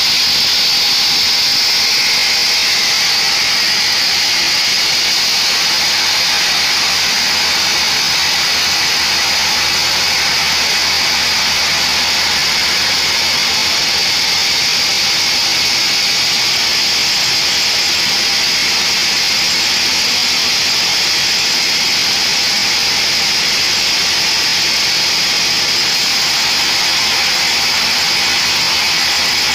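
Vertical band saw cutting lengthwise through a mahogany log, a steady high-pitched whine and hiss of the blade in the wood with the machine's hum beneath.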